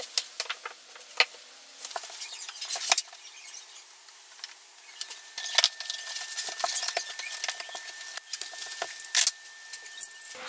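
Hands handling a paper template and vinyl floor planks: paper rustling and the planks tapping and clicking as they are set down, a string of light, irregular clicks and taps.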